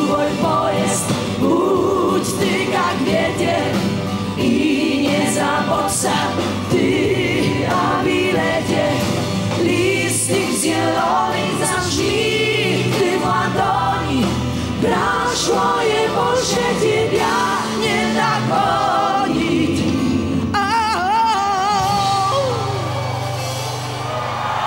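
Live pop band music with singing, with many voices singing together as an audience sings along.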